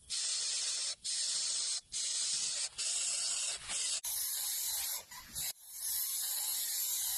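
Steady hissing noise in stretches of about a second, cut off sharply between them.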